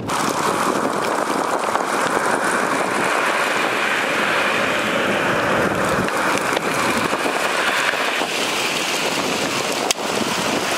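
Steady hiss of vehicles driving over a hail-covered highway, with a sharp click near the end.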